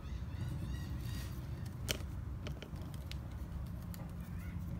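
Mityvac hand vacuum pump being squeezed to draw vacuum on an EVAP purge solenoid, testing that the closed valve holds: a sharp click about two seconds in and a few fainter clicks after, over a steady low hum.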